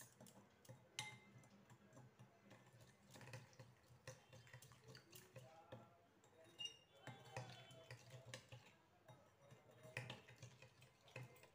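Faint, irregular clinks and scrapes of a metal spoon against a glass bowl as yogurt, oil and powdered sugar are stirred together.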